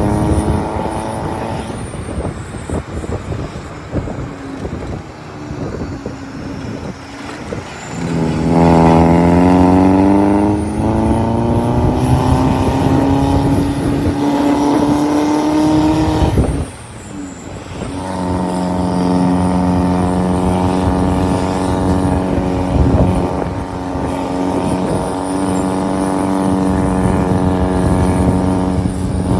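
Diesel vehicle engine running. A few seconds in its note sinks low; about eight seconds in it revs up in a long steady rise in pitch lasting some eight seconds, cuts off abruptly, then comes back and holds a steady pitch.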